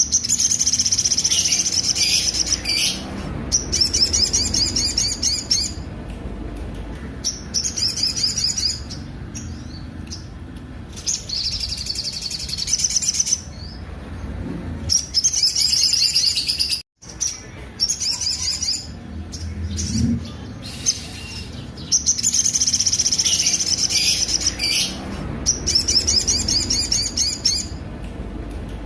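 Spiderhunter (sogok ontong) singing its harsh song: fast trills of high, rapidly repeated notes in bursts of a few seconds, broken by short pauses, with a brief dropout about halfway through.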